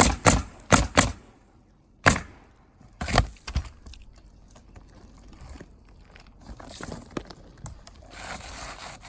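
Pneumatic roofing nail gun firing into asphalt shingles: a quick run of sharp shots in the first few seconds, several close together, then softer rustling and scraping of shingles.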